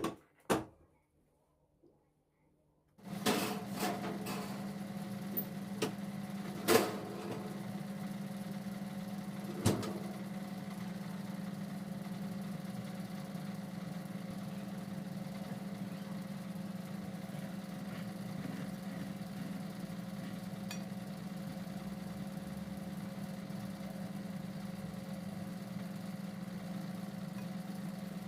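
A steady electric motor hum switches on suddenly about three seconds in, after two sharp clicks, with a few knocks over the next several seconds.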